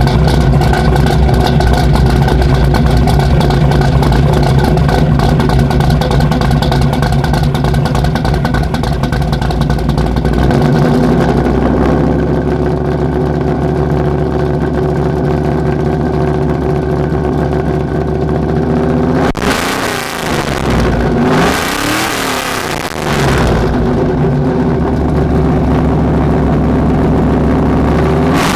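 Chevy K20 pickup's V8 running just after start-up through a new true-dual exhaust with Flowmaster Super 10 mufflers and side-exit tips. It runs at a high idle that drops to a lower idle about ten seconds in, is revved twice about two-thirds of the way through, and is blipped again at the very end.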